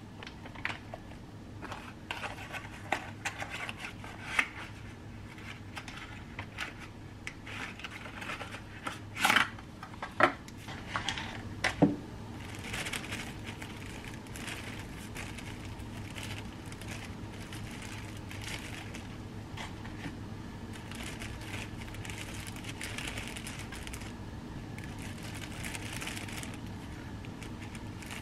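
A plastic bag crinkling and rustling as a metal spoon scoops sugar and butter into it, with scattered spoon scrapes and clicks; three sharp knocks stand out between about nine and twelve seconds in.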